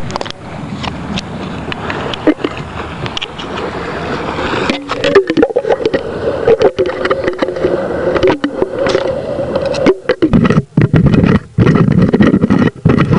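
Water sloshing and knocking against a sealed plastic jar, heard muffled through a camera's microphone inside the jar as it is held at the sea surface. A steady droning tone runs through the middle few seconds, and the last few seconds turn louder and choppier with splashes and handling knocks.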